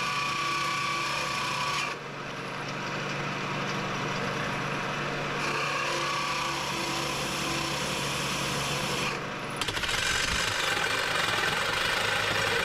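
Shopsmith multipurpose machine running under power with a tool cutting into the workpiece: a steady motor hum under a rough, rasping cutting noise. The sound changes abruptly about two seconds in and again near ten seconds.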